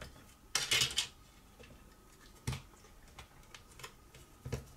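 Plastic housing parts of a Honeywell CM907 programmer clicking and clattering as they are handled and pulled apart. A cluster of clatter comes about half a second in, then single knocks about halfway through and near the end.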